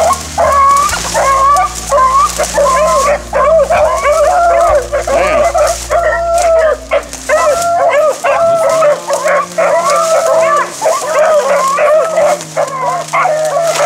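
A pack of beagles baying on a running rabbit's track, many voices overlapping in a steady, unbroken chorus of bawls and chops.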